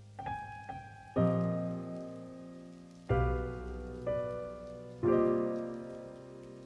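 Slow background piano music: soft chords struck every second or two, each left to ring and fade away.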